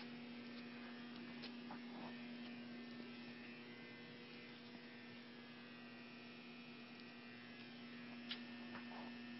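Faint steady electrical hum from a powered-up Clausing CV1640CNCF CNC lathe standing at rest, with a few faint ticks.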